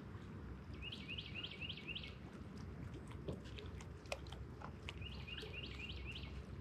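A songbird sings a phrase of about five quick repeated notes, then sings it again about four seconds later. Scattered small clicks and a steady low rushing noise run underneath.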